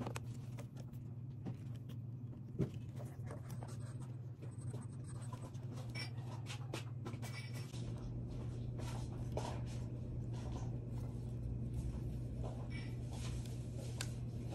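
Scattered scratching, rustling and light clicks of hands handling and unpacking items, over a steady low hum.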